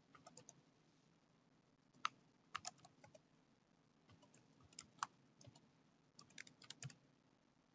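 Faint keystrokes on a laptop keyboard, typing in a web address: scattered single taps and short runs of clicks.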